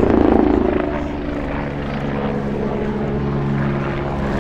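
Agusta A109 twin-turbine helicopter flying overhead: a fast rotor beat over a steady turbine hum. It is loudest in the first second, then settles into a steadier drone.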